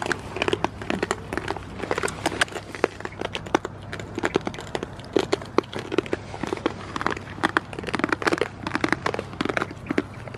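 Goats rustling and munching in dry straw bedding: irregular crackles and crunches, with a steady low hum underneath.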